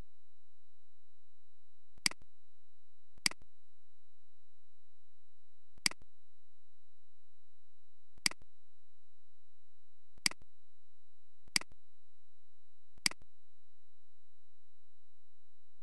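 Seven single computer mouse clicks at uneven intervals, one to two and a half seconds apart, with nothing between them but a faint steady hum.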